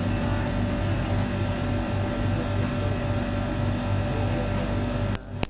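Steady low electrical hum that cuts off suddenly about five seconds in, followed by a single sharp snap: a small spark as a jump wire is touched across a burnt PCB track.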